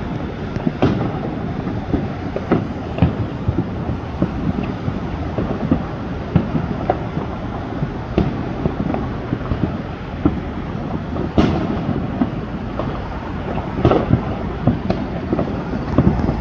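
Fireworks going off: a continuous low rumble of overlapping booms, broken by sharper bangs every second or two. The strongest bangs come about eleven and fourteen seconds in.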